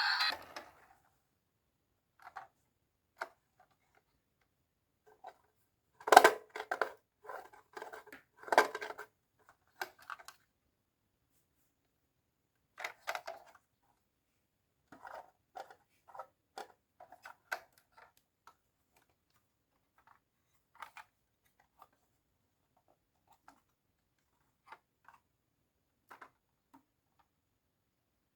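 Marbles clacking and rattling along a marble run in irregular runs of hard clicks: a busy clatter about six to nine seconds in, a shorter burst around thirteen seconds, then ever sparser single ticks.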